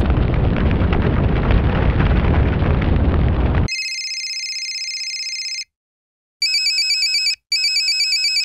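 Sound-effect fire burning in a loud, steady rumble, cut off after about three and a half seconds. A steady electronic ring follows, then after a pause two trilling, telephone-like rings of about a second each, the alarm call to the fire crew.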